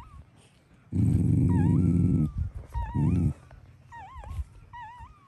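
Newborn puppies squeaking and whimpering repeatedly with short, high, wavering cries. A low, rumbling growl from the mother dog, loud and lasting over a second, starts about a second in, and a shorter one follows about three seconds in.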